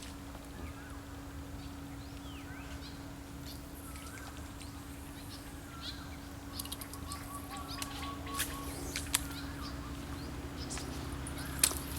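Birds calling outdoors in short chirps over a steady low hum, with a quick run of short notes about halfway through and a few sharp clicks near the end.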